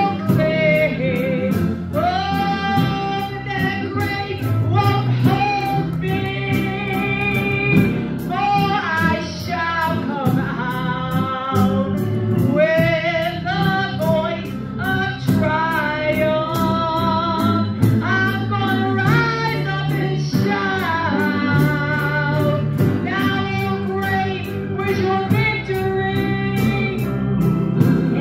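A woman singing a gospel song into a microphone over instrumental accompaniment, holding long notes with vibrato.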